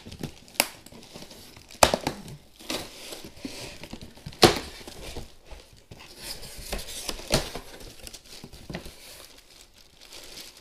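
Cardboard shipping box being opened by hand: packing tape tearing and flaps pulled back in a run of sharp snaps and rustling cardboard, the loudest snap about four and a half seconds in. Crinkling of the plastic bag wrapping the gear inside near the end.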